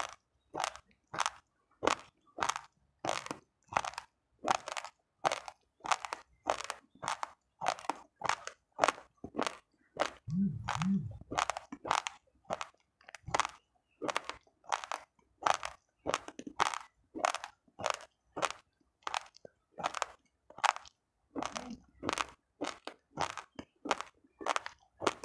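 Close-miked crunching of raw, uncooked rice grains being chewed, in a steady rhythm of about two crunches a second.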